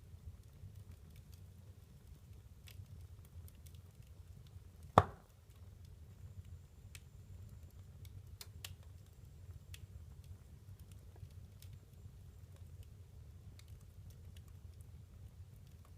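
Wood fire burning in a fireplace: a low steady rumble with scattered small crackles, and one loud pop about five seconds in.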